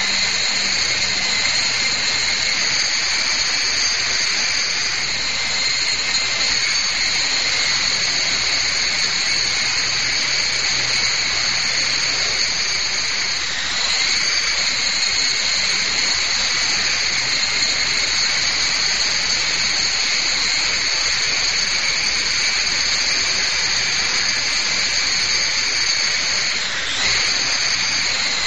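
Small electric RC helicopter, a Lama V3 in a nano frame, flying: a steady high-pitched whine from its electric motors and spinning rotors. The pitch dips briefly twice, about halfway through and near the end.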